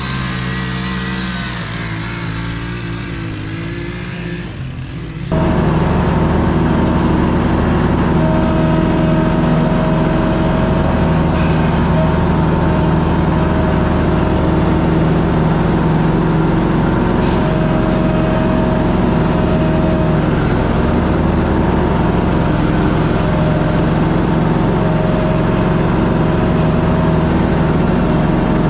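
A gas string trimmer running, its engine pitch wavering, for about five seconds. It then cuts abruptly to a commercial lawn mower's engine running steadily and louder while mowing, with a higher tone that comes and goes.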